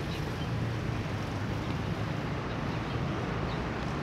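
Steady low rumble of wind buffeting the microphone, with faint outdoor background noise.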